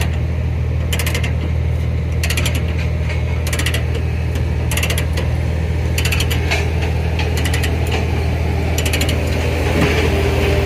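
A ratchet cranked in short strokes: bursts of rapid clicking repeating about once every second and a quarter, eight times. A steady low hum runs underneath.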